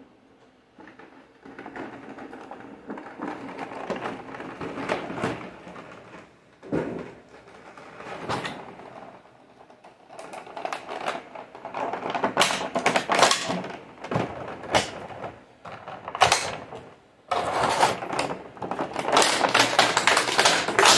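Clear plastic packaging crinkling and crackling as a large action figure is handled and worked out of it. The crackling comes in uneven bursts and is loudest in the last few seconds.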